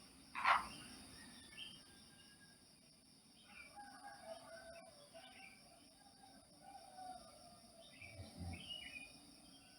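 Birds chirping and calling faintly, scattered short calls over a steady high-pitched hum, with one short louder sound about half a second in.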